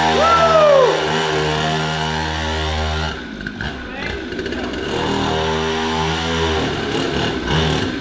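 Pocket bike's small two-stroke engine, a chainsaw-type motor running on oil-mixed petrol, running at a steady speed; the sound breaks off about three seconds in and the engine is heard running again later, unevenly near the end. The rider says the engine is flooding and suspects a fuel hose leaking petrol.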